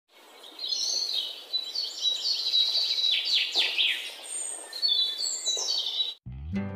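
A songbird singing: quick high phrases of trills and down-sweeping notes, one after another. Near the end the song cuts off and acoustic guitar music begins.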